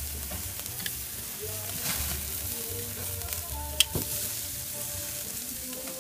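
Chicken sizzling steadily on a charcoal grill, with a few clicks of metal tongs on the grate. The sharpest click comes about four seconds in.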